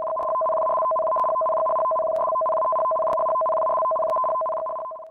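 Electronic alert tone for a tsunami warning: two steady pitches sounding together without a break, with a faint tick about once a second, cutting off suddenly near the end.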